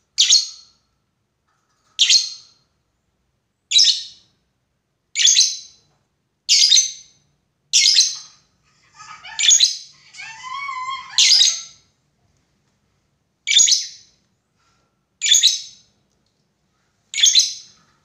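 Lovebird calling to a rival: a string of short, shrill calls about every one and a half to two seconds, with a brief warbling chatter about ten seconds in.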